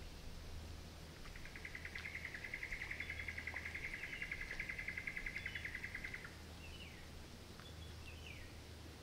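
Wildlife calls in bushland: a rapid, even trill lasting about five seconds, then a few short falling chirps, over a faint low rumble.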